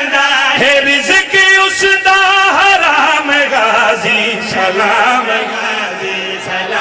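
Several men chanting a Punjabi devotional qaseeda together into microphones, in a loud, wavering, sustained melody.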